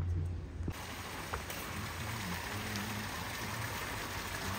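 A low hum cuts off abruptly under a second in and gives way to a steady splashing hiss of water from a row of fountain spouts pouring into a pool.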